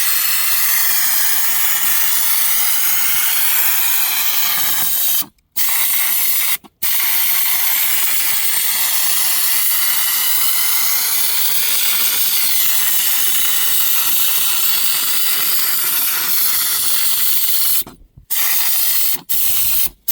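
Compressed-air spray gun hissing steadily as it sprays thick Lizard Skin sound-insulating coating, the trigger let go briefly a few times, near 5 and 7 seconds and twice near the end.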